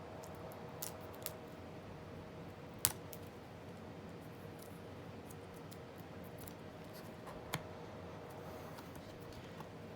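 Faint scratching and a few sharp plastic clicks, the loudest about three seconds in, as stuck shrink-wrap is worked off a plastic Blu-ray case.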